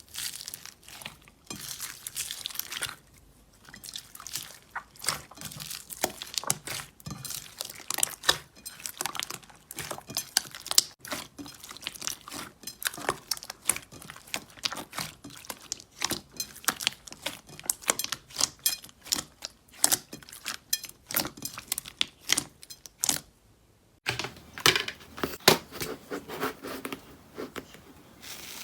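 Slime being squeezed and pressed by hand, making dense, irregular crackling, popping and sticky clicking sounds. There is a short break about three seconds in, and the texture changes about four seconds before the end.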